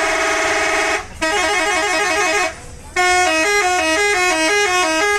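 Indonesian bus 'telolet' horn, a multi-trumpet air horn played as a tune. It holds a chord that stops about a second in, then plays a fast warbling two-note pattern, then a stepping melody of short notes that cuts off near the end.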